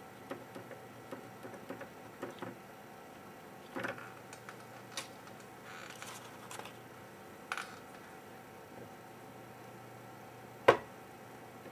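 Small ticks and taps of a brush scrubbing over the ball pads of an Xbox GPU chip. A few louder knocks from handling on the bench follow, with one sharp click near the end.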